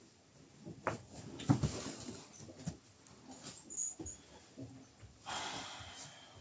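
A dog breathing and snuffling close by, among scattered soft knocks and rustles, with a short hissing rush about five seconds in.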